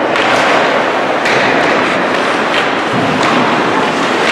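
Ice hockey play in a rink: several sharp clacks of sticks and puck and skates cutting the ice, over a steady noisy din.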